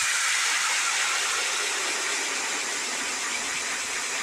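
Power ice auger boring a hole through lake ice: a steady whirring, grinding noise of the motor and the spiral blade cutting into the ice.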